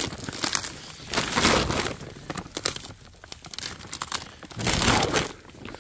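Cabbage leaves being snapped and torn off the plant, several crisp crackling breaks and rustles.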